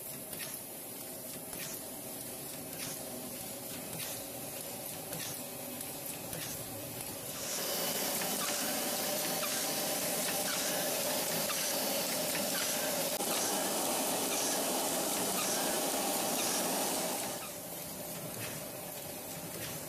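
Pack-Smart PIN mailer card-inserting and labelling machine running: a steady hum with a light click about once a second, then a louder steady hiss from about a third of the way in that lasts some ten seconds before dropping away near the end.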